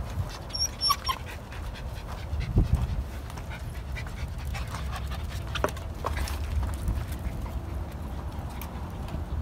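Several small dogs moving around on a wooden deck: paws and claws clicking on the boards, with panting.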